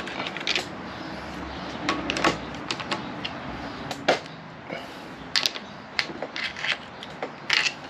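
Metal timing chain and steel sprockets on a Ford 302 small-block clinking as they are pried and worked loose with a screwdriver: irregular sharp clicks, about one a second.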